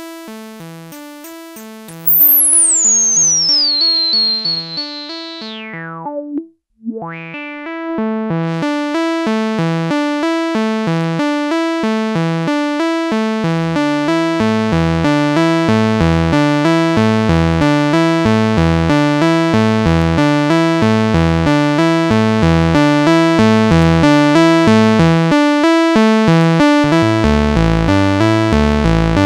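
Moog Subharmonicon analog synthesizer playing a repeating step-sequenced pattern of short notes while its knobs are turned. A high tone glides down about two seconds in, the sound cuts out briefly around six to seven seconds, and deeper subharmonic bass notes join about fourteen seconds in.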